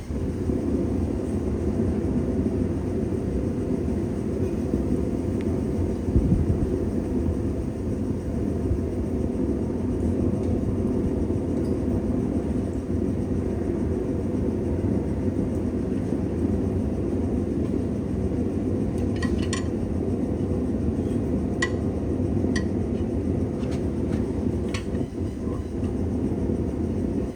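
Steady low roar of a blacksmith's forge running, with a few light metal clinks about two-thirds of the way through.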